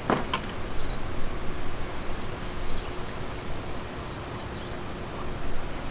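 Steady rush of water from a dam's open spillway gates, with a sharp click at the start and a few short, high-pitched ticking bursts.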